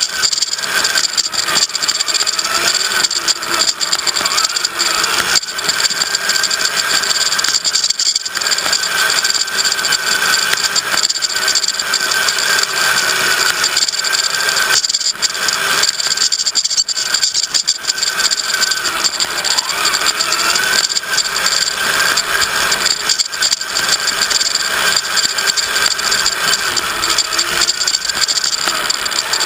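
Radio-controlled crawler driving over rough ground, heard from on board: a wavering motor and gear whine over constant rattling and clattering of the chassis and tyres.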